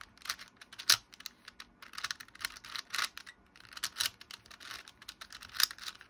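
4x4 Rubik's Cube turned quickly by hand through a corner algorithm: a rapid, uneven run of plastic clicks and rasping slides as the layers turn, with the loudest click just under a second in.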